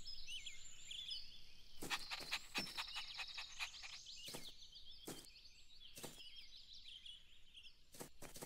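Faint outdoor ambience of small birds chirping, with a quick run of light taps about two seconds in and a few single taps later on.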